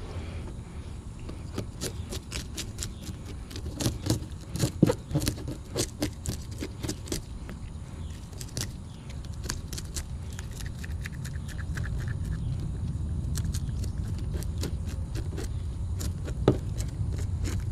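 Knife blade scraping the scales off a bluegill on a plastic table: quick, irregular rasping strokes, busiest in the first several seconds, with a sharper knock near the end. A steady low rumble runs underneath.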